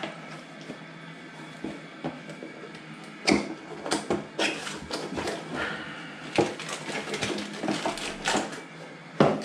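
Tools and parts being handled and put away during a tidy-up after a toilet repair: irregular knocks, clatters and rattles of hard objects, loudest about three seconds in, again a little past six seconds, and near the end.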